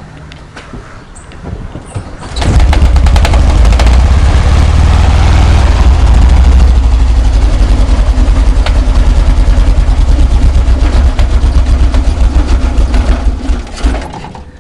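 VW Kombi engine starting from cold and running with a loud, rapid knocking, like something loose inside, then cutting off near the end. The knock comes only on the first start of the day, and the owners fear the engine has seized ("fundiu").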